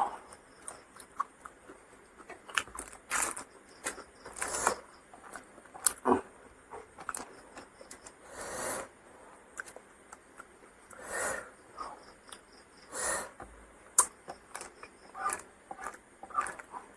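A person eating close to the microphone: irregular chewing, mouth clicks and lip smacks, with a short noisy burst every second or two.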